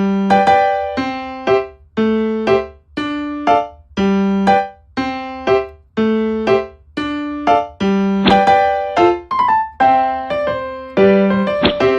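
Background music: a keyboard playing a simple melody of separate notes, about two a second, each note fading after it is struck.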